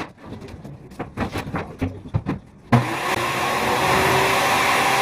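A few irregular knocks and clatters, then about two and a half seconds in a motor-driven machine starts abruptly and runs steadily with a loud rushing noise.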